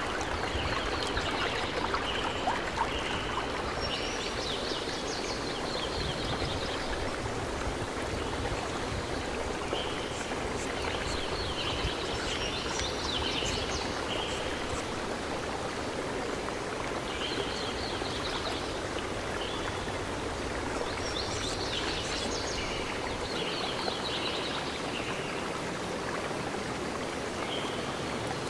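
Steady outdoor background hiss with birds chirping in short bursts every few seconds.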